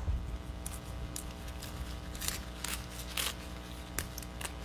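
Fresh kale leaves being torn off their tough stems by hand: a series of short, crisp rips and rustles spread over a few seconds.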